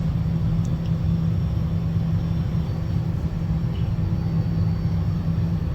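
Steady low rumble with a constant hum, like a running machine or ventilation.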